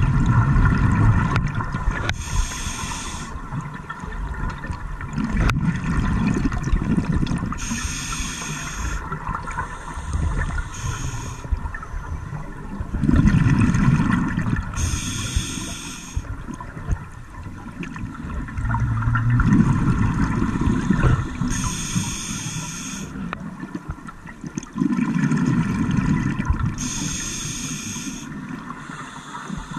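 Scuba diver breathing through a regulator underwater: each breath a low rumble of exhaled bubbles followed by a short hissing inhale, about five breaths, one every six seconds or so.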